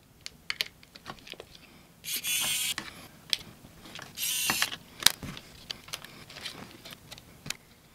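Small electric screwdriver whirring in two short bursts, removing tiny laptop case screws, with light clicks of small parts being handled between them.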